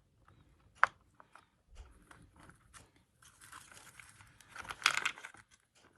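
Small plastic RC car parts being handled while the rear differential is got out. A sharp click about a second in, scattered light clicks, then a stretch of rustling and scraping near the end.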